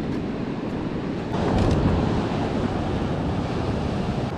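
Ocean surf washing against shoreline rocks, swelling louder about a second and a half in, with wind buffeting the microphone.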